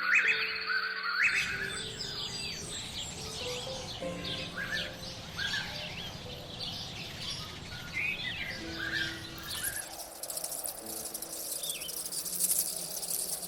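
Many small birds chirping in short, quick calls, one over another. From about three-quarters of the way in, a dense high buzzing hiss like insects joins and takes over.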